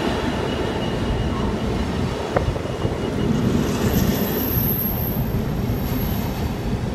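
Container wagons of a freight train rolling past close by: a steady rumble and clatter of wheels on rail. A thin high whine sounds from about three to six seconds in.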